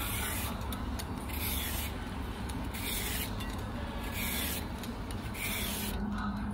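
Vegetable peeler scraping the skin off a cucumber in short repeated strokes, about one a second.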